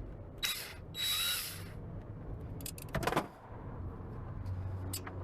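Power drill or driver whirring in two short bursts in the first two seconds, its pitch wavering as it turns, followed by a few sharp tool clicks.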